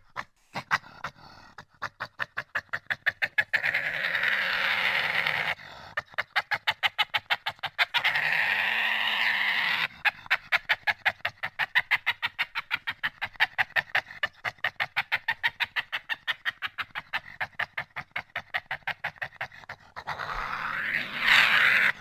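Badger calling: long runs of rapid pulsed chattering, several pulses a second, broken three times by longer wavering squealing calls. The last squeal, near the end, is the loudest.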